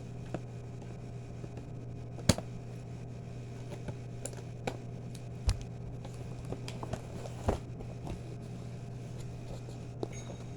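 A few scattered sharp clicks and knocks, the loudest about two seconds in, over a steady low hum.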